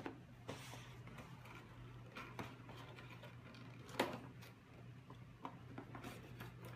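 Faint handling of a small cardboard packaging box being opened: light rustles and scrapes, with a sharper tap or click about four seconds in.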